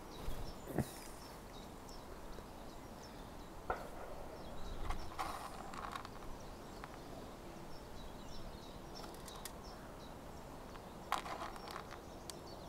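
Quiet lakeside ambience with faint bird chirps and a few scattered clicks and knocks of fishing tackle being handled.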